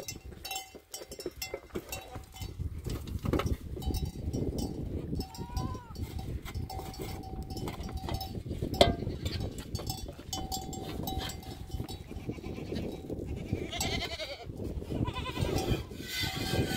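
A goat being hand-milked into an aluminium pot, the milk squirting into the pot in many short spurts, while goats in the herd bleat and a bell clinks on and off.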